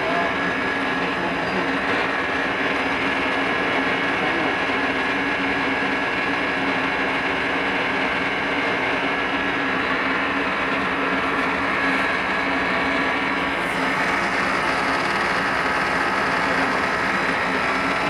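Steady mechanical drone with level hum tones and a hiss, unbroken throughout; a higher steady tone joins about three-quarters of the way through.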